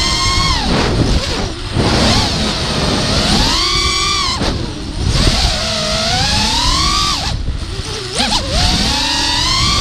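Brushless motors and 5-inch propellers of an FPV racing quadcopter whining, the pitch rising and falling with the throttle and dropping away sharply a few times, over wind rumble. The owner says the quad has a bent motor shaft, bad bearings and bent props.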